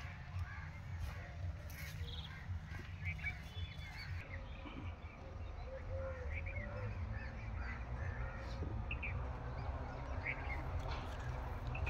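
Birds calling in short, scattered chirps over a steady low rumble.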